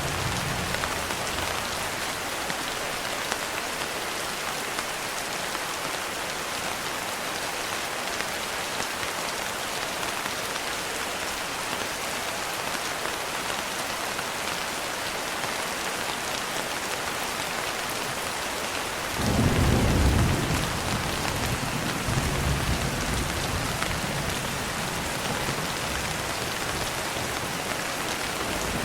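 Steady rain, with a sudden clap of thunder about two-thirds of the way in that rumbles on more softly for several seconds.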